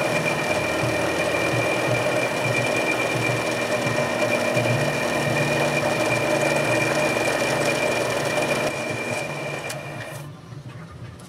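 Drill press spindle running steadily with a constant whine while a spot drill cuts a starter hole in metal angle; it eases off and stops near the end.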